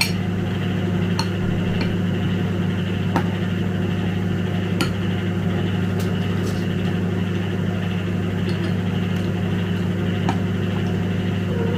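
Microwave oven running with a steady low hum, while a metal spoon clicks against a glass bowl several times during eating.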